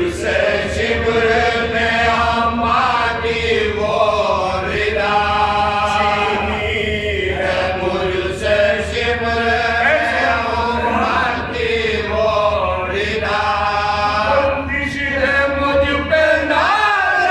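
Several men chanting a marsiya, a mournful Urdu elegy, together in unaccompanied voices, with long held notes that rise and fall. A steady low hum sits beneath the voices.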